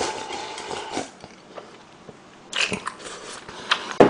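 Eating sounds: broth drunk from a bowl held to the mouth, a drawn-out slurp in the first second, then wet chewing and mouth noises near the end.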